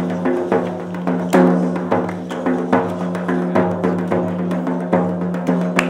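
Hand-struck frame drum, a tammorra, beating a steady rhythm of about two strokes a second over a sustained low drone note.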